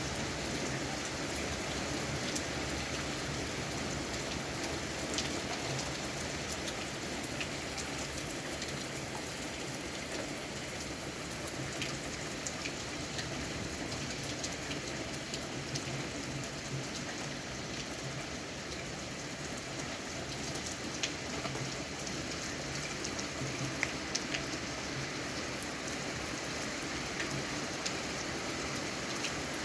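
Heavy rain falling steadily, with the sharp ticks of individual drops striking close by.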